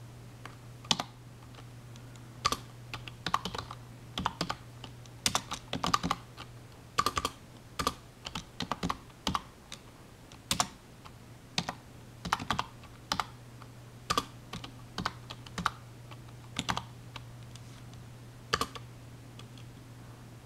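Typing on a computer keyboard: irregular key clicks, some single and some in quick runs, with short pauses between, over a steady low hum.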